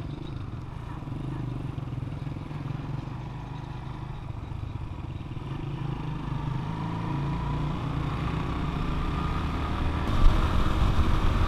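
Motorcycle engine running while the bike is ridden, getting louder as it speeds up from about halfway through. Wind rumble on the microphone grows near the end.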